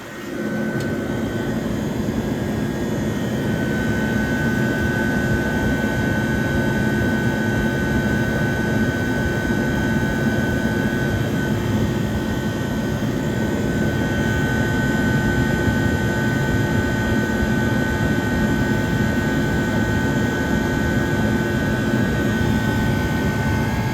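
1978 Comfort Aire Quiet Master window air conditioner running at its condenser side: the fan blowing and the compressor humming steadily, with a steady whine over the top. The compressor is still building head pressure, with the condenser coil at about 106 degrees.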